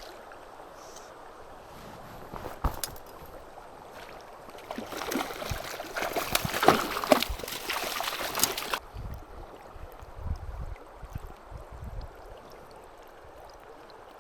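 Creek water running steadily. In the middle there is a louder rush of noise with sharp clicks for a few seconds, which cuts off suddenly, and then a few low rumbles.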